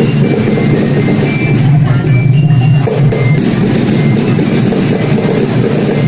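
Music with steady drumming and percussion.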